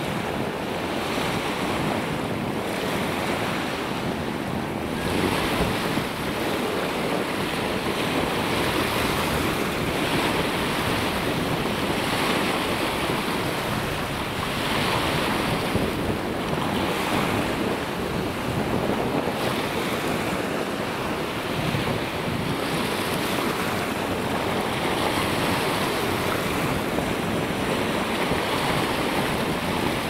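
Choppy waves of the Sea of Azov breaking onto a sandy beach, a steady rush that swells and eases every few seconds, with wind blowing across the microphone.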